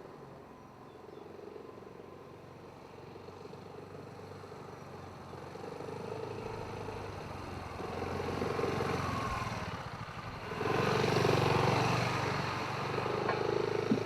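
BMW C400X scooter's single-cylinder engine running under way, growing steadily louder over about ten seconds, dipping briefly, then loudest for the next couple of seconds as it comes close.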